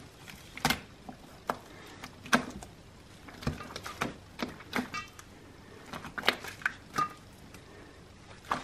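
Runny, watery homemade slime being squeezed, poked and stretched by hand: irregular wet squelches and sticky pops, about a dozen scattered through.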